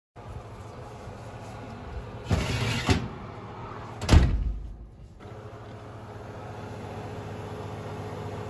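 Oven door and metal oven rack being handled as bread on parchment goes into the oven: a scraping slide about two seconds in, then a sharp metal clunk about four seconds in, over a steady low hum.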